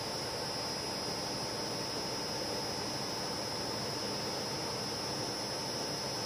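A carpet spinner, a centrifugal carpet dryer with a 3 HP motor, running at speed. It makes a steady rush of air with a constant whine over it.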